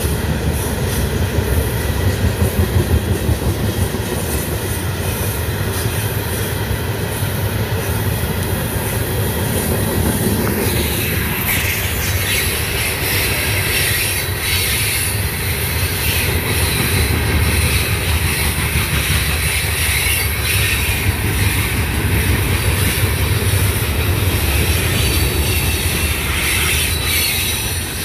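Freight train of loaded stone hopper cars rolling past: a steady rumble of steel wheels on rail with clicking and squealing. The high-pitched wheel noise grows from about ten seconds in.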